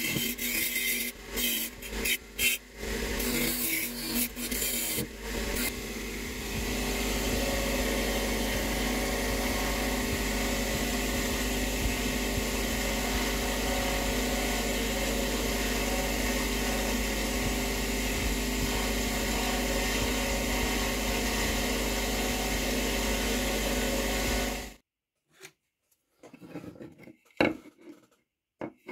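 Bench grinder with a wire wheel scratching against a rusty steel bayonet scabbard in uneven rasping strokes, then the motor running steadily with nothing touching the wheel, until it cuts off suddenly near the end. A few faint scrapes and clicks of a screwdriver at the scabbard's mouth follow.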